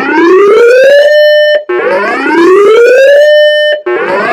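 Weather radio's siren alert sounding loudly: a wailing tone rises, holds for a moment and cuts off, repeating about every two seconds.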